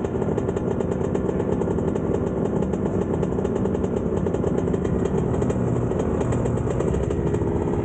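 Two-stroke dirt bike engines idling steadily close by, with no revving.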